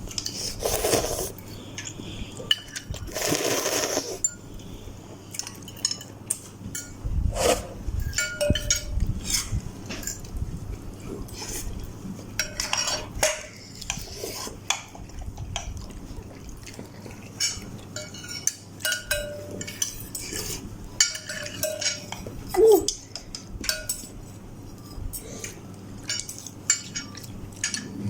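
Cutlery clinking and scraping against a bowl of instant noodles while eating, in many separate light clicks, with a few longer noisy bursts near the start.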